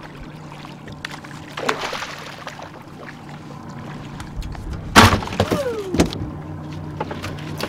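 A bonita (false albacore) splashes at the surface beside the boat, then is swung aboard and lands on the deck with a loud thump about five seconds in, and another thump a second later. An outboard motor runs steadily underneath.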